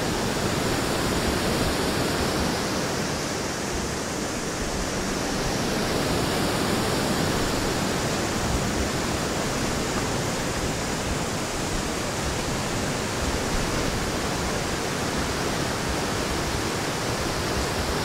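Shallow rocky river rapids and small cascades below a waterfall, white water rushing steadily and evenly.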